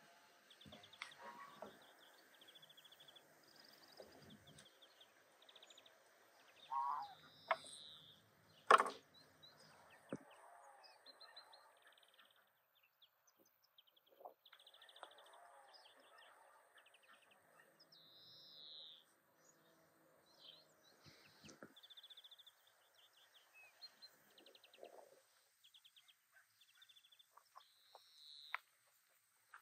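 Small birds chirping and trilling on and off, over soft handling clicks as raw turkey legs are tied with twine and hung on a steel grill rack. A sharp knock about nine seconds in is the loudest sound.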